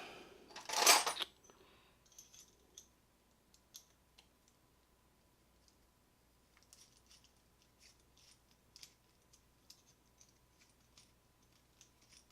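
A short loud scraping rustle about a second in, then scattered small metal clicks and taps as the parts of a Schlage deadbolt are handled on the bench at the start of taking the lock apart.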